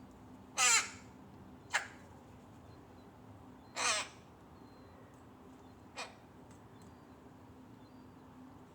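Rook calling: four harsh caws, two loud drawn-out ones about three seconds apart, each followed by a shorter, quieter caw.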